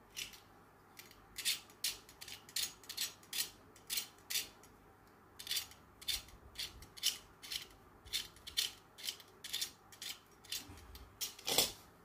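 Utility knife blade scraping the tip of a soldering iron in quick repeated strokes, about two or three a second, with a short pause about five seconds in. It is cleaning the iron's tip before soldering.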